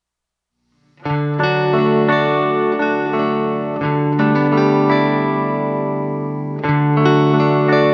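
Instrumental background music with a guitar, starting suddenly about a second in after silence.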